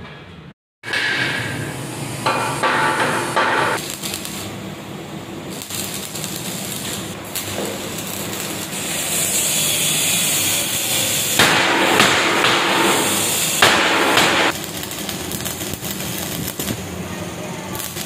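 Steel fabrication on a concrete mixer drum: arc welding crackling and hissing along the seam of a rolled steel shell, mixed with hammer blows on the steel. A stretch of strong, steady crackle runs through the middle, with a few louder cracks.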